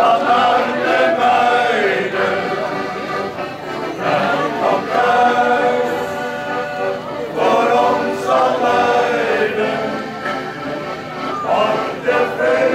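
Music with a choir singing: sustained, gliding chords from many voices together.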